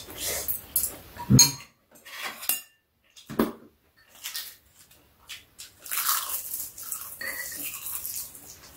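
Metal spoons and chopsticks clicking and scraping against bowls and food containers during a meal: scattered short clinks and knocks, with a stretch of scraping about six seconds in.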